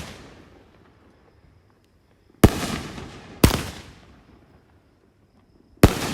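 Fireworks going off: a pair of loud bangs about a second apart a little before the middle and another bang near the end, each trailing off in a fading rumble.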